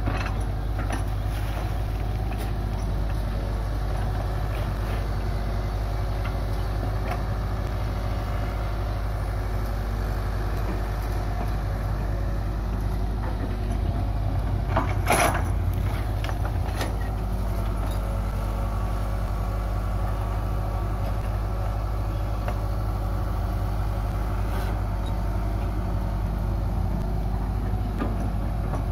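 Hitachi hydraulic excavator's diesel engine running steadily while the bucket works loose soil, with a few sharp clanks, the loudest about halfway through.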